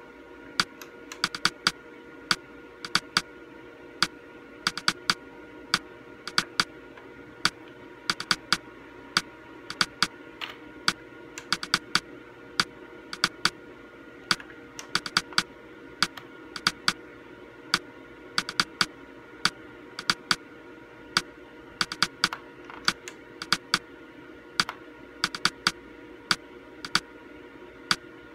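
Repeated sharp clicks of a Samsung monitor's front-panel buttons, pressed in quick runs of two or three, stepping the Hue setting up and down in the on-screen menu. A steady low hum runs underneath.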